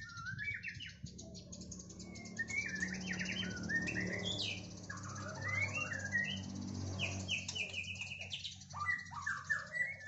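White-rumped shama (murai batu) singing in a cage: a series of varied phrases of quick rising and falling whistles and rapid repeated notes, separated by short pauses.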